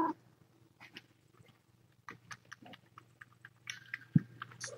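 Faint, scattered clicks, taps and rustles of cats moving about a kitten pen.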